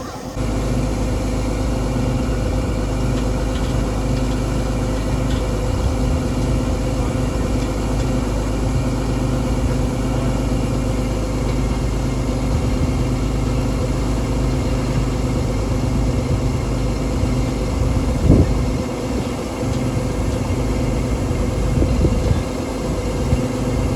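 Engine running steadily under load, growing louder about half a second in, with a brief surge about three-quarters of the way through.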